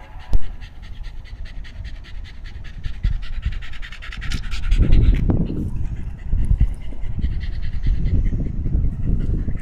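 Shiba Inu panting fast and evenly with its tongue out. A sharp knock about half a second in, and a low rumbling noise from about five seconds on.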